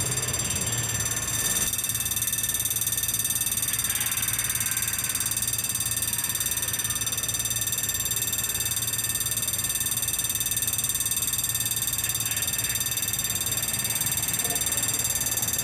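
Railway level-crossing warning bell ringing steadily while the crossing is active.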